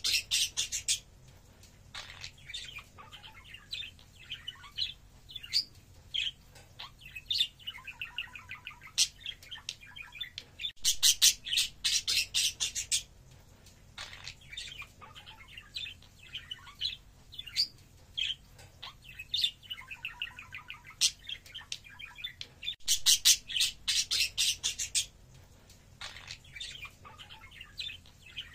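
Budgerigars chattering and warbling, with a run of short chirps and soft trills. Twice, about eleven seconds apart, a loud burst of rapid, scratchy chatter lasts about two seconds.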